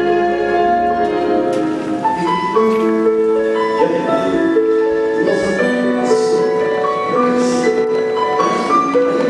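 Instrumental background music: a slow melody of held notes over chords.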